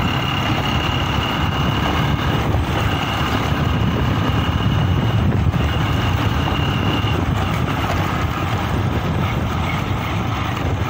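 Truck engine running steadily as the truck drives along an unpaved dirt road, heard from inside the cab. A thin, high, steady whine sounds over it three times in the first seven seconds and then stops.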